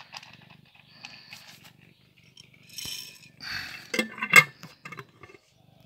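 A grey cat crunching dry kibble from a plastic bowl, with sharp clicks and clinks in the second half, the loudest a little over four seconds in. A low purr runs underneath.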